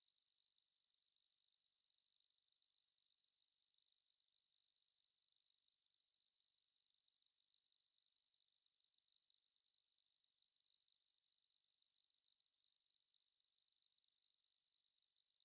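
A continuous high-pitched electronic pure tone, held at one steady pitch and level without a break: a simulated tinnitus ringing.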